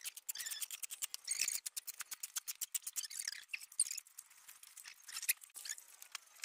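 Shovel blade scraping and turning a dry cement-and-sand mix on a concrete floor: a rapid run of short, gritty scrapes.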